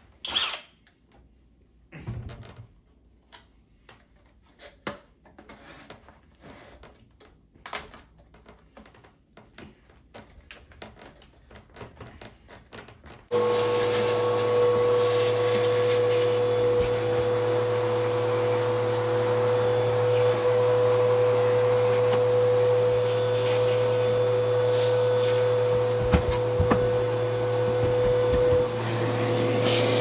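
A few scattered clicks and knocks of handling, then about 13 seconds in an upright vacuum cleaner switches on abruptly and runs steadily with a high whine. Its hose nozzle is sucking drilling debris out of a hard plastic case.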